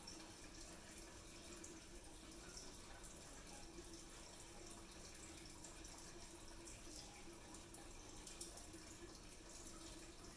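Near silence: a faint, steady room hiss with a low hum underneath.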